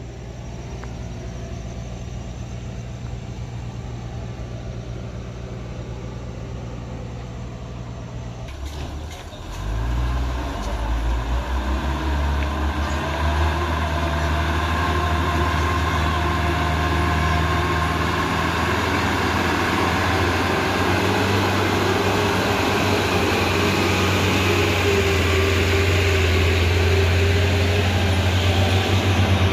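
Heavy diesel truck engine idling steadily. About eight seconds in it gives way to a louder diesel truck engine pulling under load as a box truck climbs slowly past close by.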